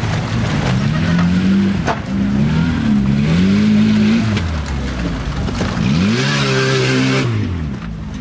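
Lifted Jeep Wrangler TJ's engine revving hard in repeated bursts, the pitch climbing and falling each time, under load as it tries to climb a muddy hill. The biggest rev comes near the end with a loud rush of noise, and there is a brief sharp click about two seconds in.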